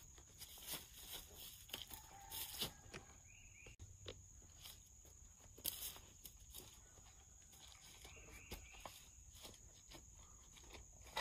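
Faint footsteps and scattered light knocks and taps of someone handling a metal carport frame, with the loudest knock about halfway through. A steady high-pitched insect drone runs behind.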